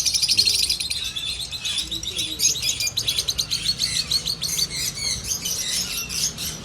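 Caged birds, lovebirds among them, chattering: a dense, continuous stream of rapid, high-pitched chirps from several birds at once.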